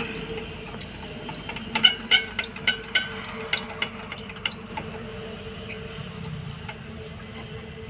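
Liquid glugging out of a plastic jerrycan as it is poured into a power tiller's engine, a run of quick ringing glugs about three a second from about two seconds in, over a faint steady hum.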